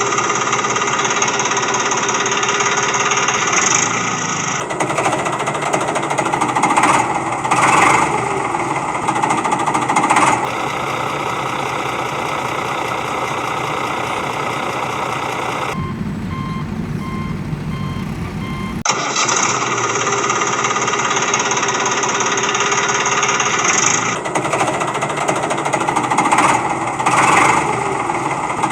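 Loud, steady engine and machinery running, with swells of revving here and there and a brief change in tone in the middle. The pattern repeats, like a looped engine sound track.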